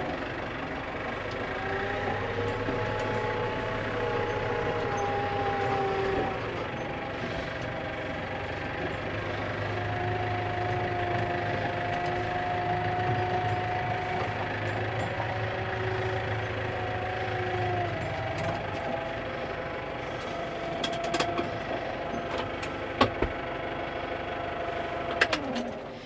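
Farm tractor engine running as it is driven under cover, its revs rising and falling a few times, with a few knocks late on. It is shut off right at the end.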